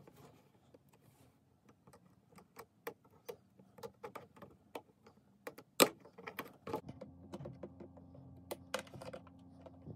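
Cardboard and plastic model-horse packaging being handled, a run of light clicks and rustles as the box is opened. The sharpest click comes a little before the middle. Later, snips of a small cutter go through the plastic ties fastening the model to its cardboard backing.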